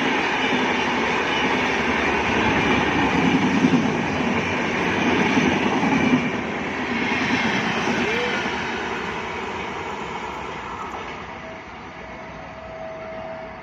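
The 12357 Durgiana Express, an Indian Railways passenger train, running past with steady rolling wheel-and-rail noise that fades over the last several seconds. A faint steady tone comes in near the end.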